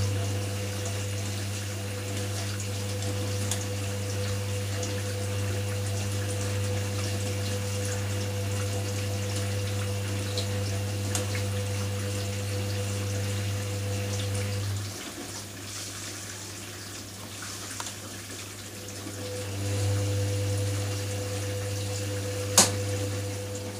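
Hoover front-loading washing machine in its wash cycle: the motor hums steadily as the drum tumbles the wet, sudsy load with water sloshing. The hum drops away for a few seconds about two-thirds of the way through as the drum pauses, then comes back as it turns again, and a sharp click sounds near the end.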